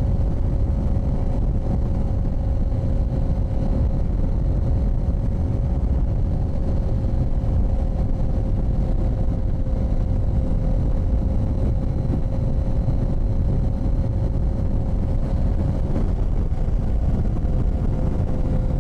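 Steady wind rumble on the camera microphone over an engine running at an even speed, heard as a constant hum.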